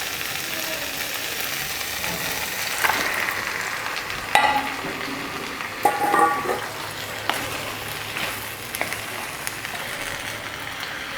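Chicken pieces sizzling in hot oil and onion-tomato masala in a kadai, stirred with a spatula that knocks against the pan a few times.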